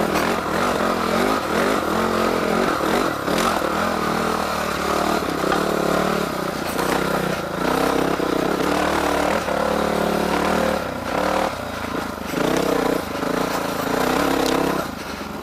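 Honda dirt bike engine running under load on a rocky trail, its revs rising and falling with the throttle, with occasional knocks from the bike going over rocks.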